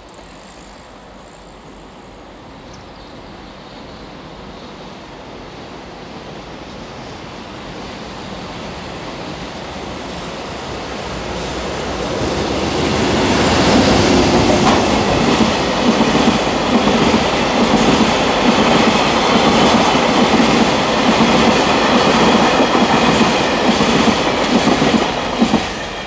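EH500 electric locomotive hauling a freight train of tank wagons: a rumble that grows steadily louder as it approaches, then loud rhythmic wheel clatter as the tank cars pass for about twelve seconds, dropping off sharply near the end as the last wagon goes by.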